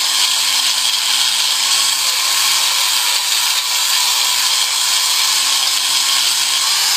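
860-watt angle grinder with a foam-backed sanding pad running at full speed and pressed onto a wooden board to sand it: a steady motor whine over the hiss of abrasive on wood, its pitch wavering slightly with the pressure.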